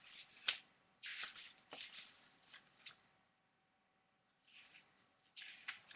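Rustling and handling noise in short bursts, with a few sharp clicks among them and a quiet stretch of about a second and a half past the middle.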